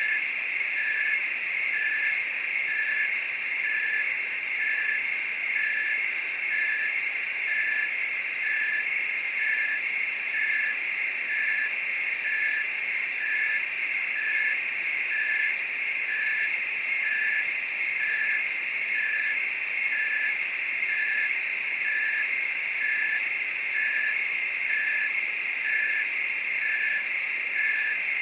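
Night chorus of crickets and frogs: a dense, steady high trilling, with a short call repeating evenly about once a second.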